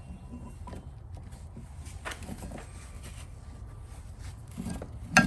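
Light clicks and knocks of a steel main bearing cap being handled and set onto a crankshaft, with one sharper metal knock near the end, over a low steady hum.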